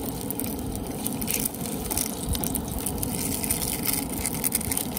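Hot dogs sizzling in oil in a frying pan on a propane camp stove: a steady crackling sizzle over a low rumble.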